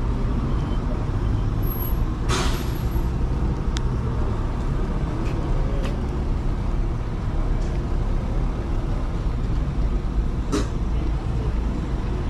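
Steady low rumble of road traffic, with a brief hiss about two seconds in and a short click near the end.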